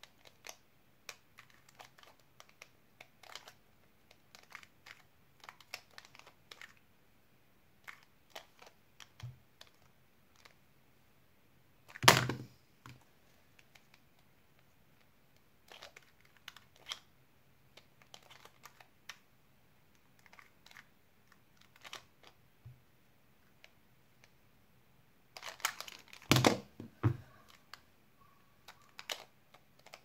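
Plastic 2x2x1 puzzle cube being turned by hand: scattered quick clicks and clacks of its layers snapping round, with a few louder knocks, one about twelve seconds in and a cluster of them near the end.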